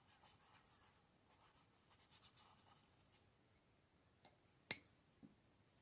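Faint paintbrush strokes on sketchbook paper, a soft intermittent scratching, with one sharp tap about three-quarters of the way through.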